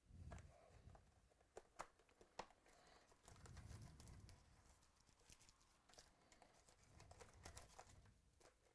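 Faint handling of a cardboard trading card box and its foil-wrapped packs as they are lifted out and set down: light crinkling and rustling, with a few sharp taps about two seconds in.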